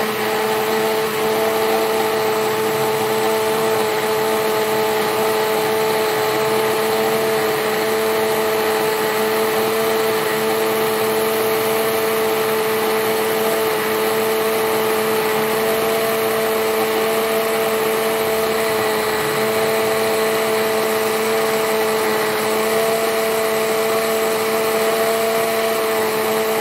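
Electric blender running steadily, its motor holding one even pitch throughout as it purées pineapple with cucumber juice and water.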